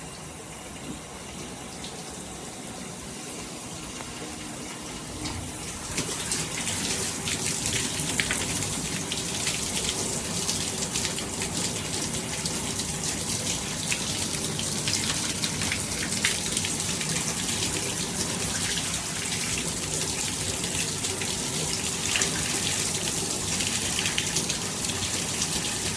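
Shower head spraying water in a steady hiss, which grows louder and brighter about six seconds in.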